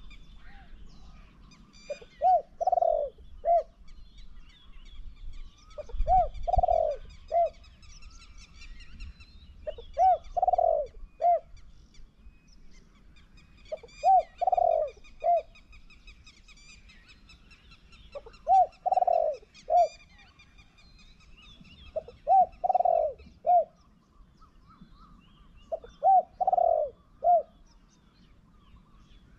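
Caged decoy spotted dove cooing: seven phrases about four seconds apart, each a short note, a longer loud one and a short one. Small birds chirp faintly behind it.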